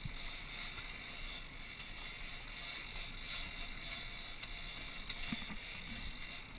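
Steady rushing noise of wind and sea water around an offshore fishing boat, with no distinct events.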